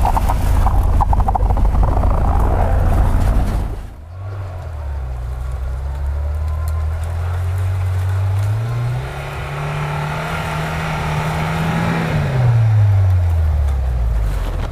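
Off-road vehicle engine running under load. For the first few seconds it is loud and rough. About four seconds in the sound changes abruptly, and the engine revs rise partway through, hold for a few seconds, then fall back near the end.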